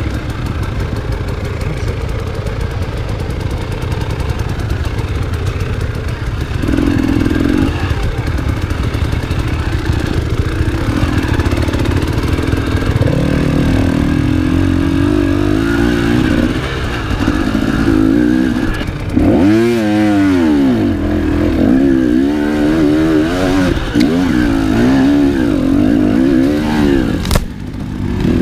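Enduro motorcycle engine running under load, revving up and down again and again, with a run of quick rising-and-falling revs about two-thirds through. A single sharp knock comes near the end.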